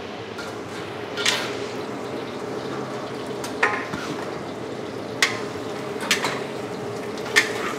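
Metal spatula stirring a giant steel wok of vegetables and shredded chicken, scraping and knocking against the pan in about five sharp clanks, over a steady background rush.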